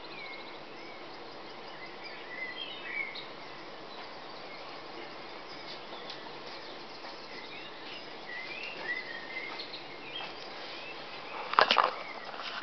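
Dawn chorus: several songbirds singing short, chirpy phrases over a steady background hiss. Near the end, a few loud knocks and rustles of the camera being handled.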